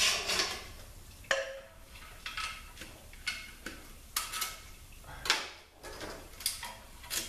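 Steel snap rings and clutch pressure plates from a Chrysler 604 transmission's low/reverse clutch clinking and clicking against each other as they are handled. The clicks come about once a second, irregularly, and a few ring briefly.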